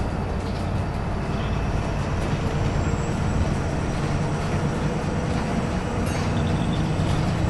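Wright Pulsar single-deck bus under way, heard from inside the passenger saloon: a steady diesel engine drone mixed with road and tyre noise, with a brief clatter from the bodywork about six seconds in.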